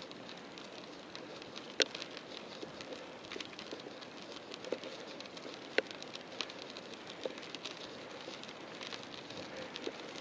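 Bicycle in motion: a steady hiss of tyres and passing air with scattered light ticks and rattles, and two sharper clicks about two and six seconds in.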